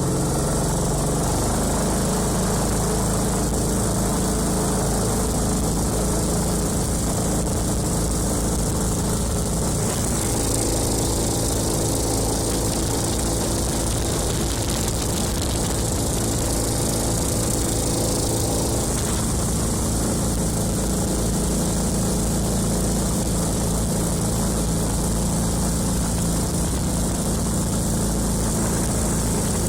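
Honda GX390 single-cylinder four-stroke engine driving a canoe's waterjet, running steadily with its speed shifting a few times as the throttle changes.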